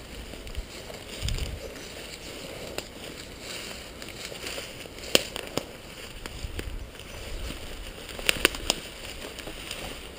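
Footsteps pushing through dense forest undergrowth: leaves and brush rustling, with twigs snapping in sharp cracks, one about five seconds in and two close together near eight seconds.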